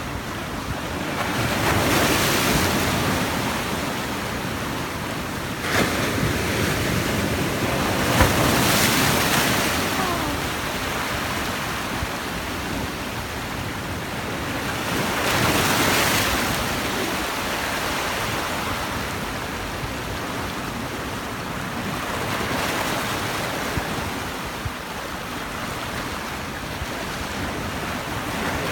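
Sea waves breaking on the shore: a continuous wash of surf that swells into several louder surges a few seconds apart as waves break and draw back.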